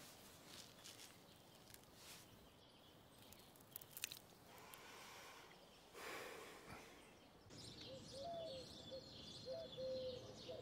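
Near silence: faint ambience with a few soft clicks, then faint short chirps in the last few seconds.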